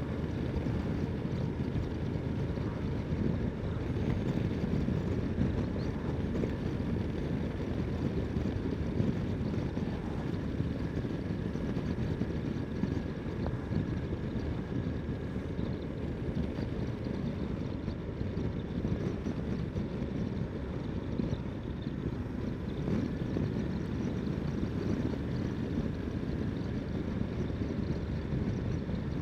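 Ducati Multistrada 1260 S's V-twin engine running steadily on the move, mixed with an even rush of wind and road noise.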